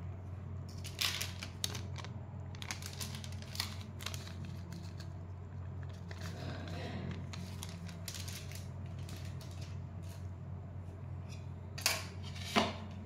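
Plastic sauce sachet and spice packet crinkling as they are squeezed and shaken over a pot of noodles: short, scattered crinkles, with two sharper crackles near the end, over a steady low hum.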